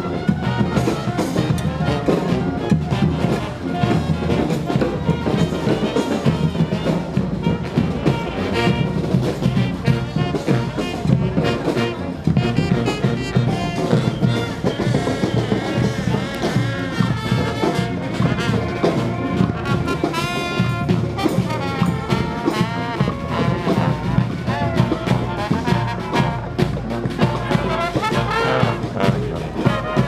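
Brass band playing in the street: trumpets and other horns carrying a tune over frequent drum strokes.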